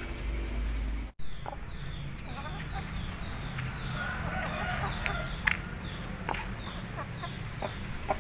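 A low rumble for about the first second, then an abrupt cut to chickens clucking. Through the clucking run strings of short, high, falling peeps and scattered sharp clicks.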